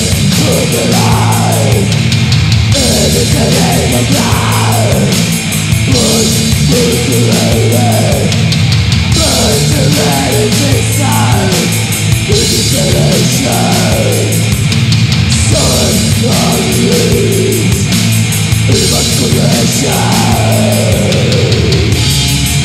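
Old-school death metal recording: heavily distorted guitars, bass and drums playing loud and dense, with repeated falling guitar slides.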